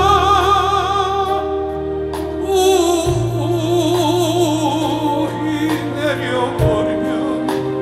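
Live ballad performance: a slow sung melody held on long notes with wide vibrato, over band accompaniment with sustained bass notes that change twice.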